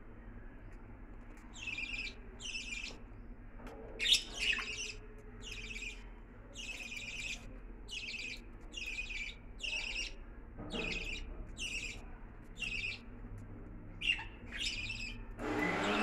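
Budgerigars chirping, short high calls repeated about once a second. A sharp knock about four seconds in is the loudest sound.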